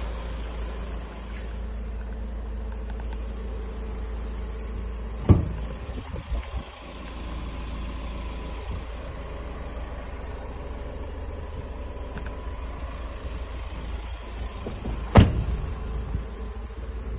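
Two sharp clunks about ten seconds apart from the MAN TGE van's doors being worked, over a steady low rumble.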